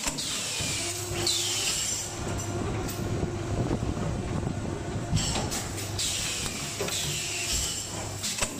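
Automatic laser welding machine for colander mesh rings running: a steady machine hum, with a pair of falling hisses near the start and another pair about six seconds in, and a few sharp clicks between them.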